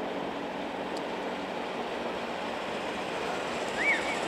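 A train approaching from a distance: a steady, even rumble with a faint low hum beneath it. A short high chirp sounds near the end.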